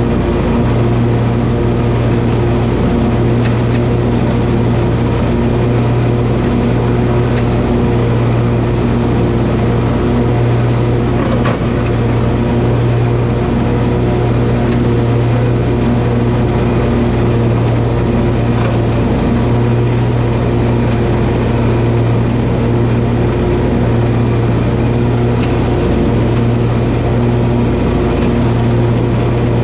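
Toro zero-turn lawn mower's engine running steadily under mowing load, with one brief click about eleven seconds in.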